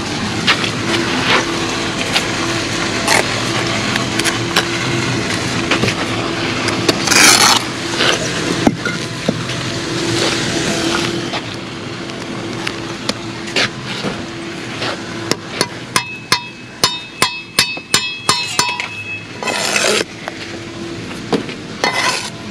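Steel bricklaying trowel scraping mortar and tapping concrete blocks. In the second half comes a run of sharp, ringing metallic clinks, about two a second.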